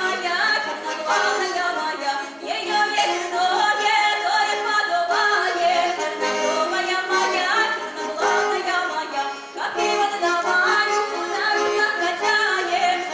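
A girl singing a Russian folk dance song solo, accompanied by accordion.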